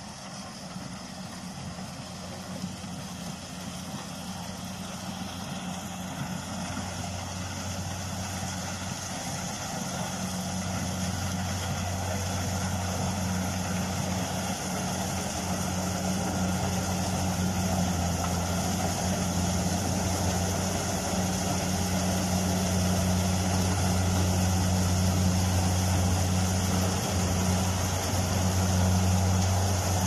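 Corn combine harvester's engine running steadily while it cuts its way along the corn rows. The steady hum grows louder as the machine comes closer.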